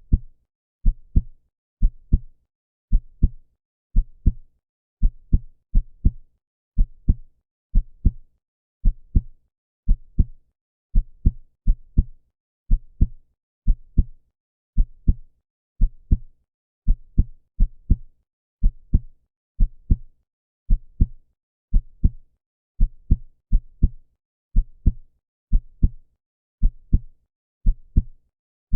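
Heart sounds: a steady lub-dub, the two heart sounds of each beat a fraction of a second apart, repeating at about one beat a second.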